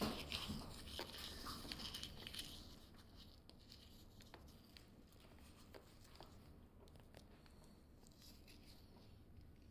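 Near silence: faint rustling that fades out over the first two seconds or so, then room tone with a few soft clicks.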